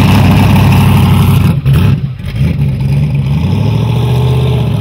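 Turbocharged V8 of a fourth-generation Chevrolet Camaro SS running at low speed with a choppy idle as it rolls out. The note dips briefly just under two seconds in, then settles into a steadier low-throttle tone.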